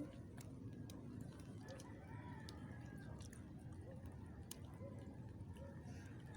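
Faint chicken calls: a rooster crowing and hens clucking.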